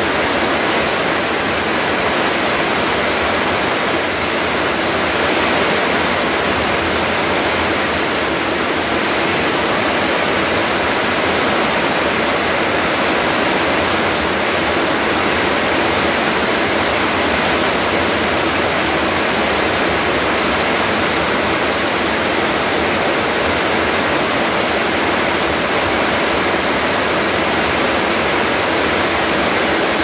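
Heavy rain pouring steadily onto garden foliage and a wet paved yard, an even hiss with no breaks.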